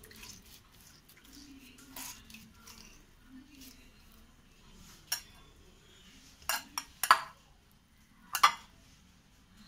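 A metal spoon clinking against a glass bowl about five times while scooping up chicken masala filling, the sharpest clinks coming in the last few seconds.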